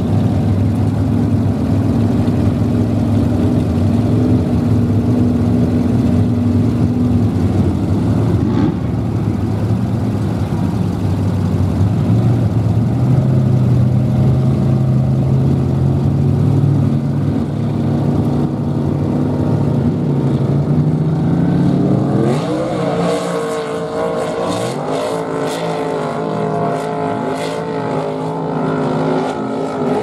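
Lifted mud-bog truck engines running steadily. About two-thirds of the way in, one engine revs up hard, its pitch rising, and mud and water spatter from the spinning tyres as it runs the mud pit.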